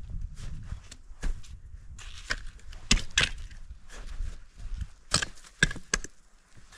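A hiker's boots crunching step by step on the trail at an uneven pace, with sharp crunches and scuffs; the loudest come about three seconds in and around five seconds in.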